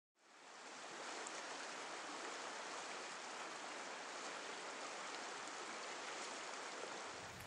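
River rapids: fast water rushing over rocks, fading in from silence over about a second and then running steadily.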